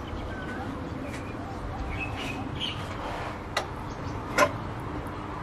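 Birds chirping in the background, with two sharp knocks about three and a half and four and a half seconds in, the second louder, from clamps and blocks being set on a wooden guitar body.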